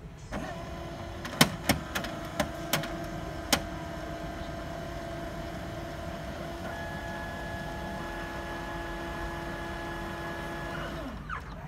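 HP Color LaserJet Pro MFP M181fw laser printer running its mechanism while it initializes after a settings restore: a steady motor whine with several sharp clicks in the first few seconds, a higher tone joining about halfway, and the motors winding down together near the end.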